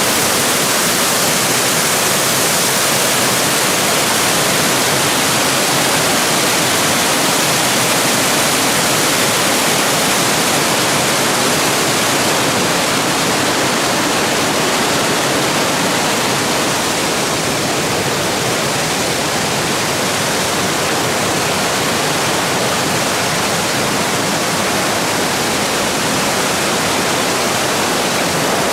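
A mountain stream rushing, a loud, steady, unbroken sound of running water.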